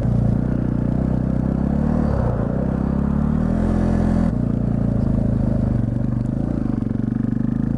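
Yamaha TT-R250 dirt bike's single-cylinder four-stroke engine running under load as it climbs, its pitch changing about two seconds in and again about four seconds in.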